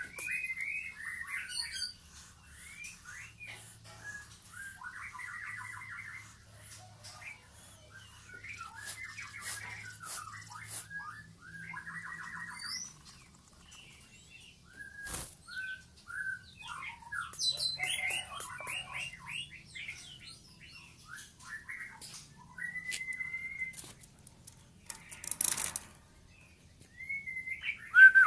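Rainbow lorikeet chattering: a long run of short chirps, whistles and buzzy trills, with a single sharp knock about halfway through and a brief rustle a few seconds before the end.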